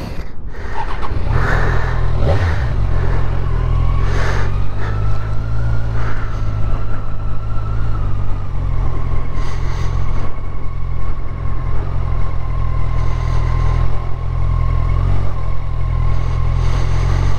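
Motorcycle engine running as the bike rides on, a steady low drone starting about a second in, with a thin high whine over it that rises a little at first and then holds steady.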